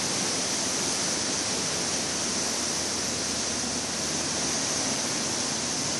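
Steady, even hiss of a heavy rainstorm, with no separate events standing out.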